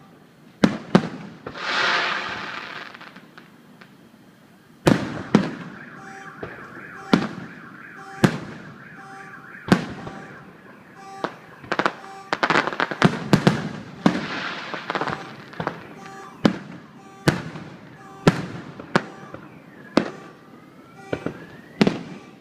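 Consumer fireworks going off: a series of sharp bangs, with a crackling burst about two seconds in and rising whistles near the end. An evenly repeating beep runs under the bangs from about six seconds in.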